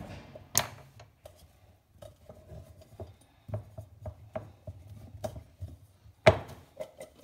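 Irregular knocks and clatter of potatoes and kitchen things being handled on a worktop as the cut potatoes are set aside, with a sharp loud knock about six seconds in.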